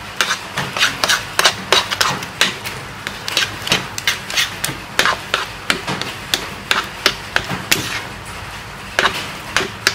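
A metal fork mixing thick mashed potato in a nonstick frying pan, knocking and scraping against the pan about three times a second, with a short pause near the end.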